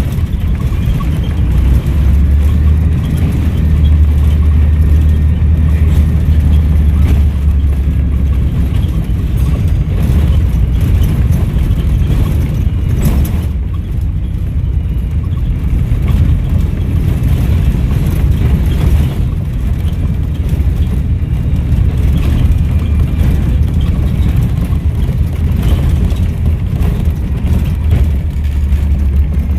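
Volvo B7RLE bus's six-cylinder diesel engine running under load, at its heaviest from about two to eight seconds in, then running on steadily.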